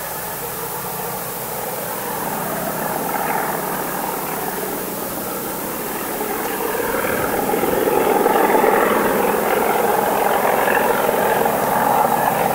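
Class 37 and Class 47 diesel locomotives working under power as they haul a passenger train. A steady engine rumble that grows louder partway through as the train draws nearer.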